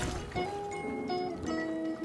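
Background music: a melody of held notes that step from one pitch to the next.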